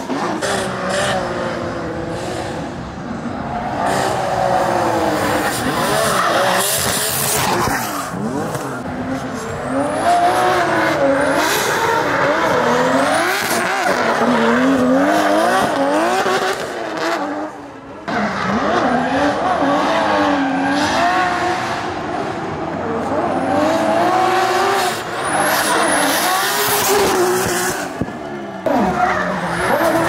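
Drift cars' engines revving hard, the pitch swinging up and down over and over, with tyres screeching as the cars slide. The sound drops away briefly about two-thirds through.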